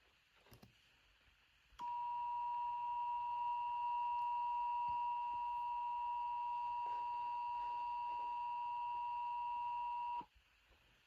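Emergency Alert System attention signal: a steady two-note electronic tone that starts about two seconds in, holds for about eight seconds, and cuts off suddenly.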